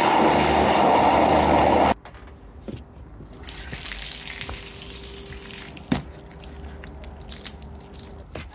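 A jet of water sprays into a bucket, frothing up the soapy wash water, for about two seconds and then cuts off suddenly. Quieter wet rubbing of a wash mitt on the car's bodywork follows, with one sharp knock about six seconds in.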